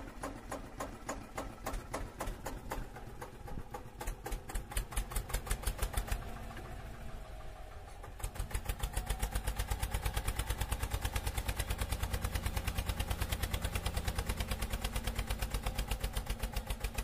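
Tractor engine sound chugging unevenly at first, then settling about halfway into a steady fast chug of about five or six beats a second.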